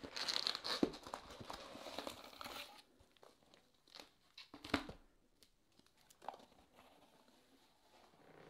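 Crinkling and rustling of wax and foil card-pack wrappers and foam packing peanuts as the packs are pulled out of a cardboard box, for about the first three seconds; then a few light taps as the packs are set down on a tabletop.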